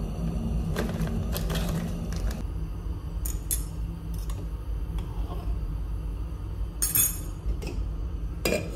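A metal spoon clinking and knocking against a small saucepan as ravioli are dropped in and stirred in water on a gas stove. Scattered single clinks over a steady low hum.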